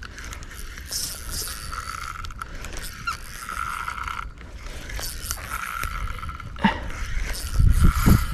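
Spinning fishing reel being cranked in bursts while fighting a hooked fish, a whirring that starts and stops several times. A loud low rumble comes in near the end.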